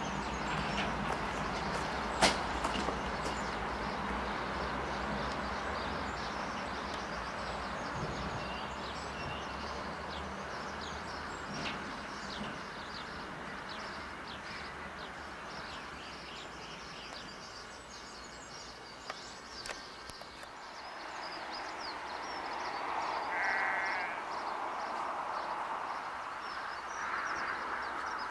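Narrow-gauge diesel locomotive engine running steadily, fading away about two-thirds of the way through, with birds chirping. Near the end a sheep bleats a couple of times.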